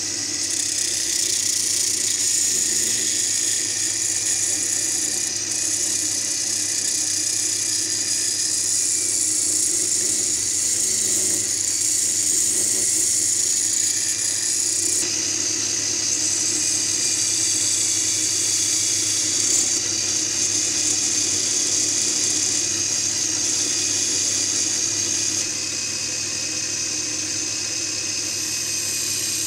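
Angle grinder running steadily with a high whine as the drive motor of a homemade wood lathe, while a hand-held turning chisel cuts into the spinning wooden blank. The sound shifts abruptly about halfway through and again near the end.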